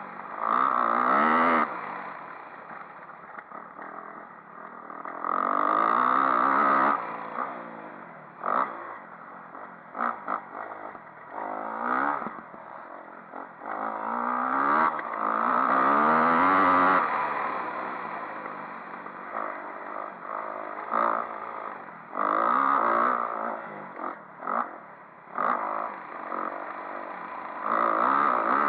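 Dirt bike engine under hard riding: it revs up through the gears in repeated full-throttle surges and backs off in between. Short clatters sound between the surges.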